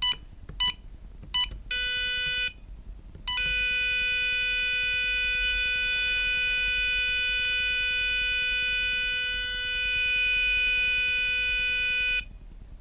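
Eurosec CP8L alarm keypad: three short key-press beeps, a longer beep about two seconds in, then the exit buzzer sounding as one steady tone from about three seconds in until it cuts off near the end. The buzzer marks the exit delay after the alarm is fully armed with the full lock key.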